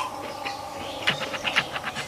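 Close-miked chewing of a mouthful of chicken biryani: wet mouth smacks and clicks, coming in a quick run of about eight a second from about a second in.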